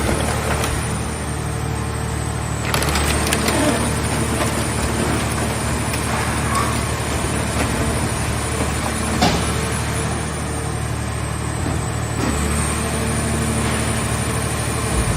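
Scrap car-body baler running, with a steady engine and hydraulic drone and a constant high whine. Two sharp knocks come a few seconds apart.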